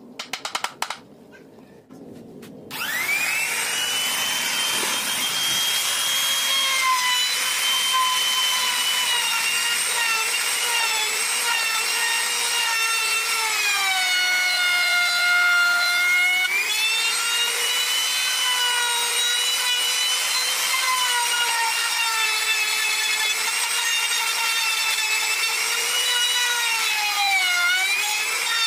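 A quick run of hammer taps on wood, then a compact electric trim router starts about three seconds in with a rising whine and runs steadily while cutting wood, its pitch dipping for a couple of seconds in the middle and briefly near the end as the bit is loaded.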